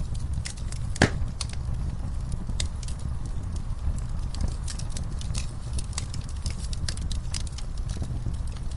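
Wood fire in a fireplace crackling and popping at irregular intervals over a low steady rumble of the flames, with one sharp, louder pop about a second in.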